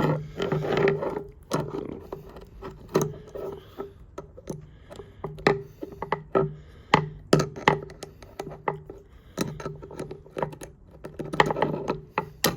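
Small metal parts of a pair of Felco No. 2 pruning shears being handled and worked on with a tool: irregular clicks and taps of steel on steel and on the work surface as the shears are taken apart again.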